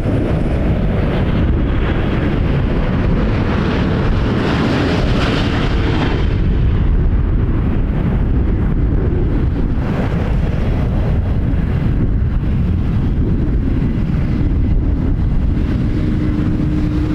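Strong wind buffeting the microphone over the jet engine noise of a Boeing 787-9 Dreamliner; the engine sound is strongest in the first few seconds and fades after about six seconds.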